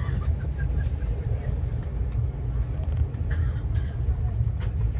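Moving passenger train running with a steady low rumble, with a few short knocks and clatters over it.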